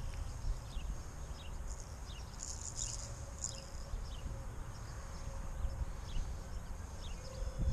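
Wind rumbling on the microphone. Faint, short, high chirps that slide downward in pitch repeat irregularly over it, about one or two a second.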